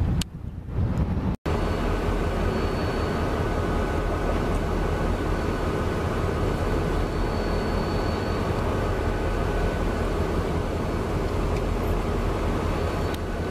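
Steady low rumble of Union Pacific diesel locomotives in a rail yard, heard at a distance, with a faint high whine for a few seconds in the middle.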